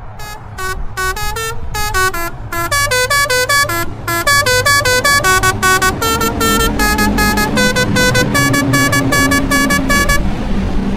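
A custom musical truck horn plays a fast tune of short, sharp notes, about four a second, stepping up and down in pitch over a low rumble. The tune stops near the end.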